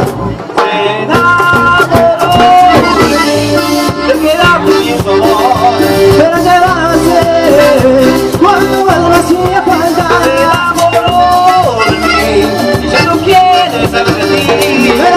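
Live cumbia band playing an instrumental passage: a melody line over a steady bass and percussion beat, with a brief drop in level about half a second in.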